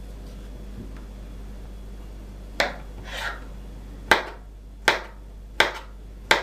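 Kitchen knife slicing a peeled banana on a wooden cutting board: the blade knocks on the board about five times, at uneven intervals, in the second half.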